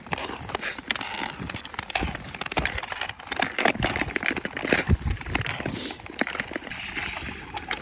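Ice skate blades scraping and gliding over thin black lake ice, with many sharp clicks and crackles from blades and ice-pole tips striking the ice.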